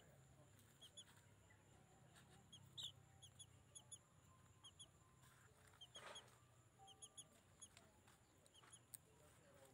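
Near silence: faint outdoor ambience with small, high chirps, mostly in quick pairs, repeating irregularly, and a few faint clicks.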